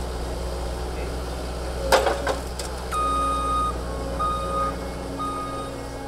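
Cat 262D skid steer loader's diesel engine running with a steady low drone, with a couple of sharp clanks about two seconds in. From about three seconds its reversing alarm beeps, roughly once a second.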